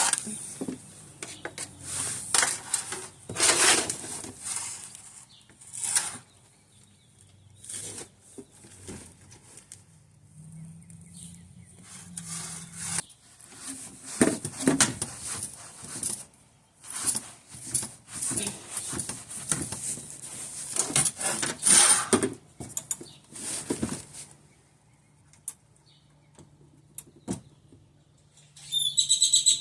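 Irregular clicks, knocks and scrapes of hand tools and parts being handled while working on a car, in bursts with short pauses, and a brief high squeak near the end.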